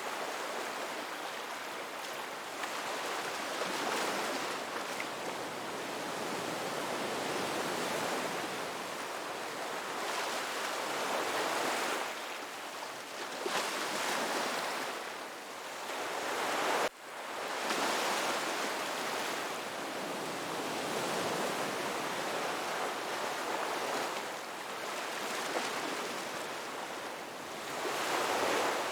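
Ocean surf: waves breaking and washing up a beach, a steady rush that swells and eases every few seconds. About two-thirds of the way through it cuts out for a split second and comes straight back.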